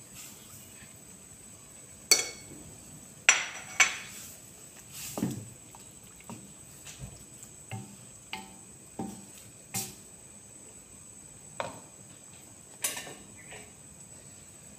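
A spatula knocking and scraping against a metal wok, about fifteen irregular clacks. The loudest come in the first few seconds with a brief metallic ring, and lighter taps follow.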